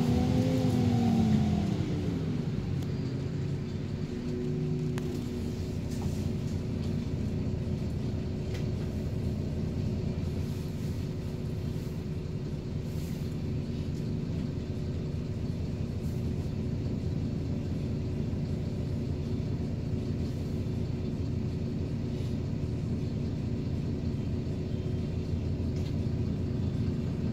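City bus driving along, heard from inside the passenger cabin: steady engine and road noise with a faint constant hum. At the start a whine bends down in pitch and fades out within the first two seconds.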